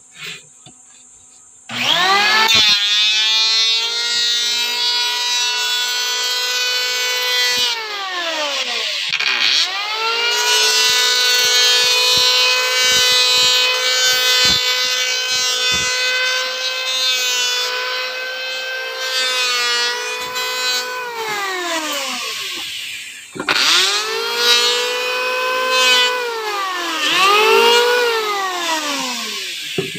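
Handheld electric wood planer starting up about two seconds in and running with a high, steady whine. Its pitch sags as the blades cut along the wooden strip, and it spins down and back up several times between passes.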